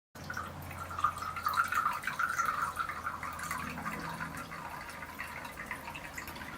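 Water trickling and dripping from a shishi-odoshi bamboo water fountain, starting abruptly just after the start, busiest in the first few seconds.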